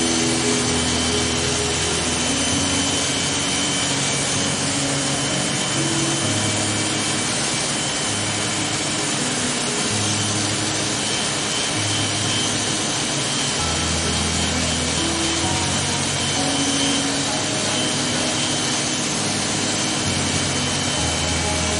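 Corded electric hair clippers running steadily and cutting short hair on the side of the head. Background music with low notes that change every second or two plays underneath.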